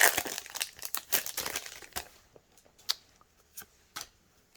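Foil trading-card booster pack wrapper crinkling as it is torn open, for about two seconds, then a few faint sharp taps.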